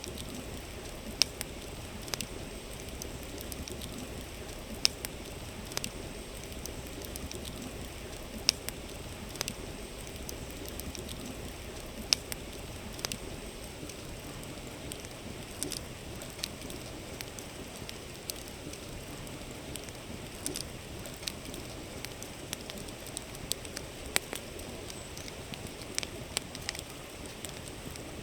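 Campfire crackling with irregular sharp pops, a few louder snaps among many small ones, over the steady rush of a flowing river.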